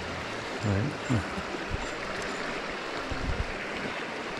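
River current rushing steadily over stones, with a few short low thumps about a second in and again a little after three seconds.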